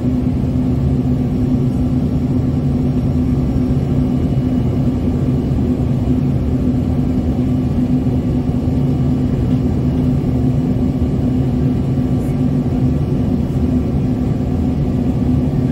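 Steady cabin noise of an Embraer ERJ-145 regional jet in its climb after takeoff: a constant low roar from the rear-mounted turbofan engines and the airflow, with a steady low hum running through it.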